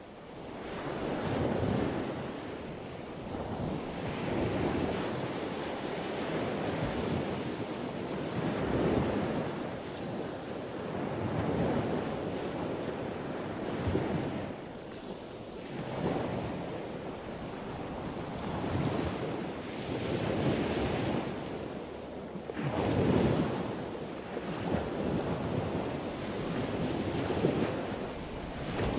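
Ocean waves washing onto a shore, surging and easing every few seconds.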